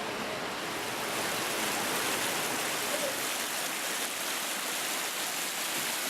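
Steady rushing noise like flowing water, a little stronger after about a second.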